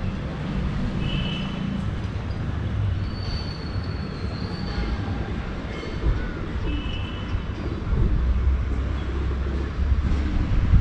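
Steady low rumble of city road traffic, growing heavier in the last few seconds. A few brief high-pitched squeals sound over it: one about a second in, a longer one a few seconds in, and another near seven seconds.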